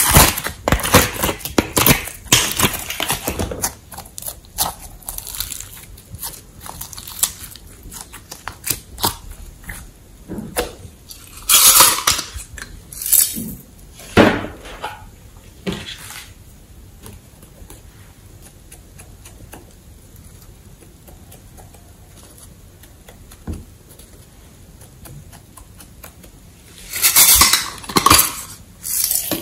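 Hard plastic cases and modelling clay being handled: quick plastic clicks and crackles as clay is squeezed out of a compartment box, a few louder clacks, then about ten quiet seconds before more loud clattering of a plastic case near the end.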